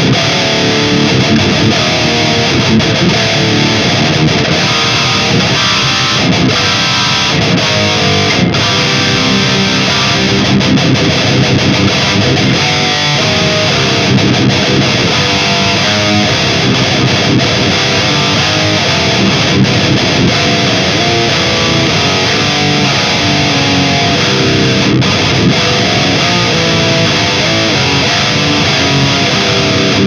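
High-gain distorted electric guitar playing continuous metal riffs through a Mooer 005 Brown Sound micro preamp pedal, driven by an ISP Stealth power amp into a mic'd 4x12 cabinet.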